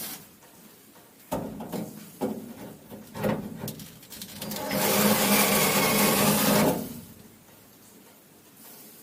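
Electric drill boring into the van's rusted door-lock screw: a few sharp knocks as the bit is set, then the drill spins up about four seconds in and runs steadily for a couple of seconds before stopping.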